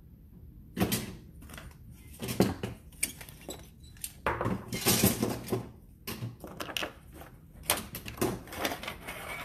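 Cookie cutters clattering and clicking against each other as a handful is gathered up and put into a cardboard box, in irregular rattling bursts.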